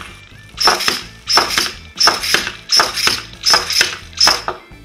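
Servo-driven hammer head of a small 3D-printed antweight combat robot swinging and clattering against the plastic chassis, loud sharp hits about once every 0.7 s.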